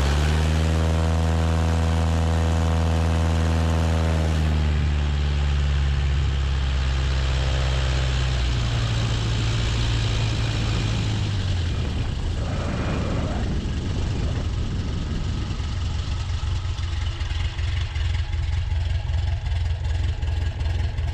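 Kitfox 5 light aircraft's engine and propeller running at high power with a steady rush of wind. About halfway through it is throttled back to a lower, pulsing idle as the plane brakes on the runway.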